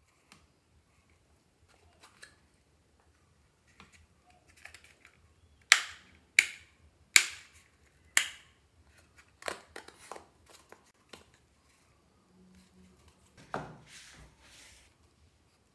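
Sharp clicks and taps from a small hand-held electronics enclosure and its lid being handled and opened: four loud clicks about once every second near the middle, then lighter taps. A duller knock near the end as the box is set down on the work mat.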